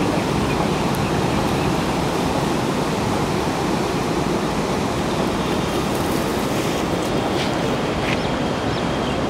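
Steady rush of a fast-flowing river, its water breaking white along a stony bank.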